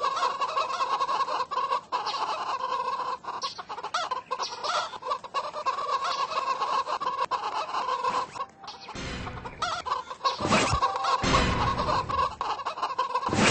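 Hens clucking, many short calls overlapping. A few louder low noises cut in about nine to eleven seconds in.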